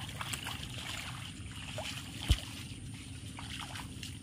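Muddy puddle water lightly sloshing and trickling, with small splashes, and one sharp thump about two seconds in.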